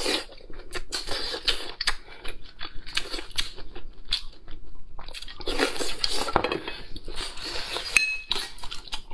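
Close-up eating sounds: lobster meat being chewed, with many small clicks of a spoon in a glass sauce bowl and of shell being handled, and a bright clink about eight seconds in.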